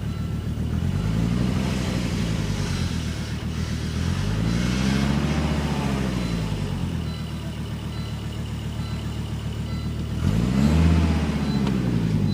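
Volvo S70 T5's turbocharged five-cylinder engine idling and being revved three times: a light blip, then a longer rev, then a quick sharp rev near the end, each settling back to idle.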